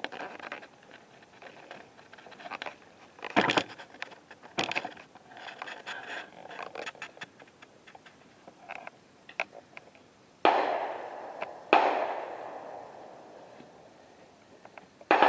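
Clicks, knocks and rustling of gear being handled, then gunshots at a rifle range: two sharp cracks about a second apart, each trailing off in a long echo, and a third near the end.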